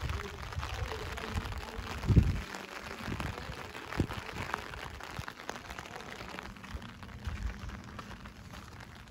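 Steady rain falling on paving, with a few low bumps, the loudest about two seconds in, and a sharp click about four seconds in.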